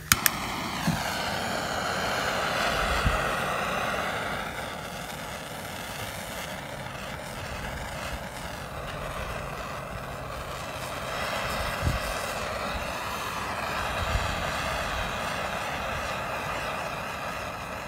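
Handheld gas torch lit with a sharp click, then burning with a steady rushing hiss of flame while it shrinks heat-shrink tubing over a wire splice, with a few light knocks along the way.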